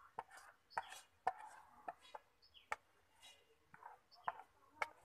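Metal spoon scraping and tapping against a plate as spices are scooped out and added to chicken for marinating. It makes a series of sharp, irregularly spaced clicks with brief scrapes between them.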